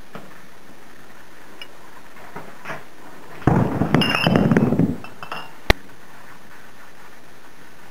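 Glass bottles clinking and knocking together in a dense clatter lasting about a second and a half, ending in one sharp click, with a few faint clinks before it.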